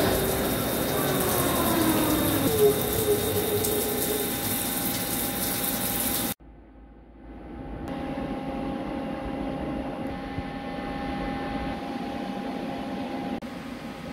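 Vertical CNC lathe turning a cast iron compressor housing under flood coolant: steady cutting and spindle noise with coolant splashing, and a whine that rises in pitch over the first few seconds. About six seconds in it cuts off suddenly to a quieter steady machine hum with faint steady tones.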